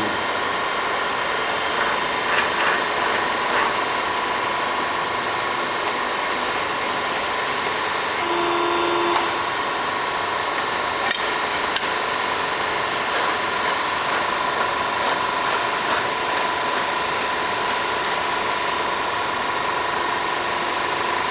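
Tube-bending machine running with a steady mechanical hum. A brief extra tone comes in about eight seconds in, and there are a couple of light clicks a few seconds later.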